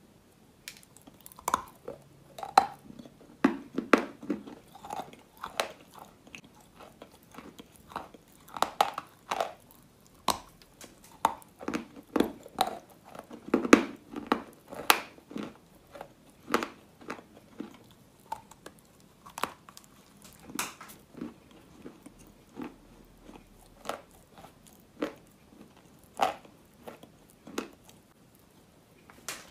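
Biting and chewing wet chalk: irregular crisp crunches, a bite or a short cluster of crunches every second or so, with brief quiet gaps between.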